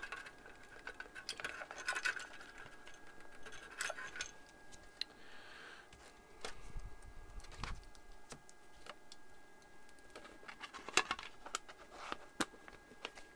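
Scattered light clicks and taps of small tools and metal parts being handled on a workbench during electronics repair, with a faint steady high tone behind them.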